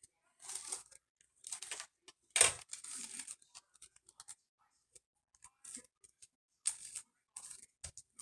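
A string of short rustling, scraping noises, about a dozen, with one louder knock about two and a half seconds in.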